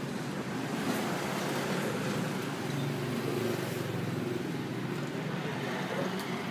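Steady street ambience dominated by motor traffic noise, with no clear speech.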